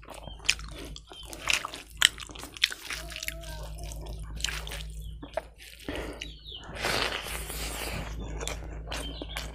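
Close-miked eating of boiled pork and rice by hand: wet chewing and lip smacks with many sharp mouth clicks, and a longer rustling stretch about seven seconds in.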